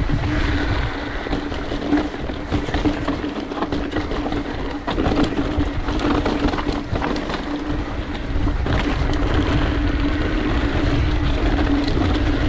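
Mountain bike descending fast on dry dirt singletrack: wind buffeting the microphone, tyres rumbling over the trail, a steady buzz from the coasting rear hub, and frequent sharp rattles and knocks as the bike hits bumps. It gets a little louder about two-thirds of the way through.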